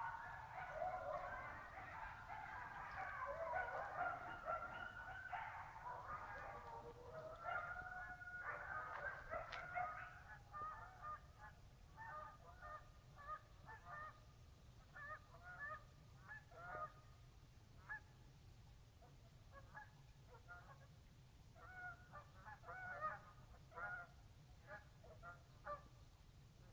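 A flock of geese taking off and flying overhead, honking: many calls overlap at first, then thin to scattered single honks from about ten seconds in, growing fainter.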